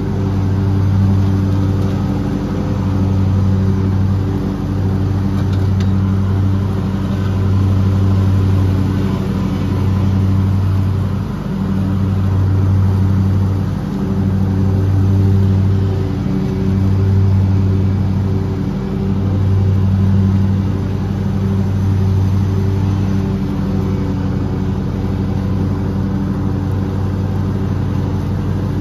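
Lawn mower engine running steadily. Its low drone swells and dips in loudness every two seconds or so.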